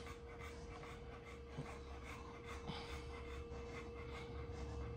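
Quiet room tone: a steady low hum with a faint steady tone over it, and a couple of soft clicks.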